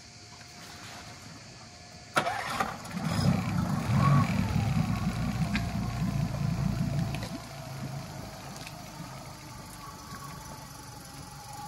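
An engine starts suddenly and runs, loud for about five seconds and then settling to a quieter, steady idle.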